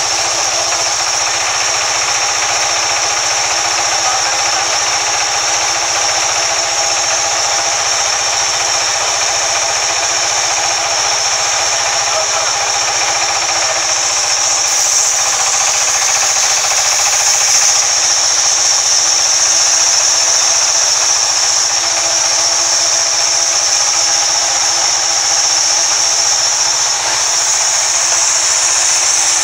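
Large sawmill band saw running and cutting lengthwise through a log, a steady whine with a strong high hiss, getting a little louder about halfway through.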